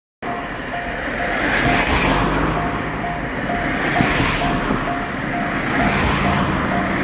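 Railroad crossing warning bell ringing in a steady rhythm, a little over two strikes a second, over a steady low rumble and noise.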